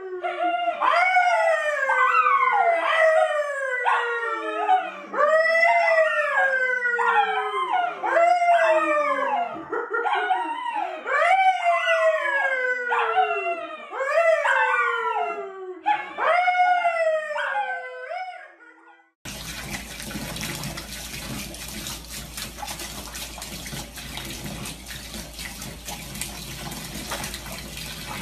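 Brown poodle howling over and over, each howl sliding down in pitch, with a man's lower howl joining in at times. About 19 seconds in, the howling stops abruptly and gives way to the steady rush of running water in a bathtub.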